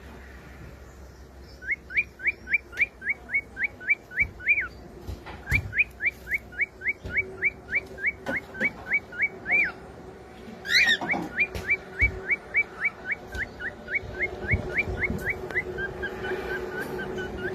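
Cockatiel whistling its song: three long runs of short, quick rising whistle notes, about four a second, with a harsher, louder call about eleven seconds in and softer short notes near the end.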